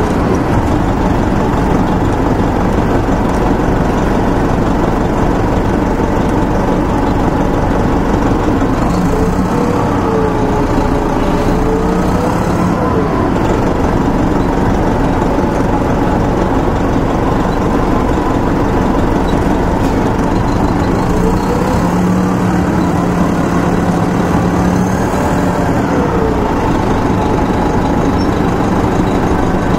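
Onboard sound of a 1996 Nova Bus RTS-06 transit bus: its Detroit Diesel Series 50 four-cylinder diesel with Allison transmission running steadily. The engine note rises and falls twice, about ten seconds in and again a little after twenty seconds.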